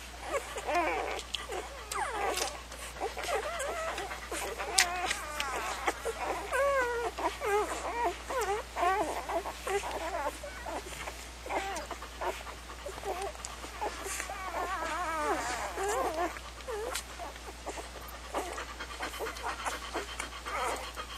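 Newborn golden retriever puppies squeaking and whimpering: many short, wavering squeals overlapping, which thin out in the last few seconds.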